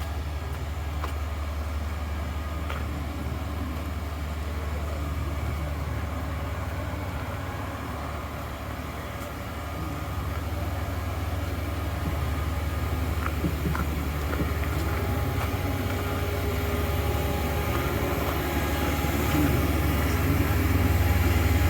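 Engine of road-work machinery running steadily with a low hum, growing louder near the end.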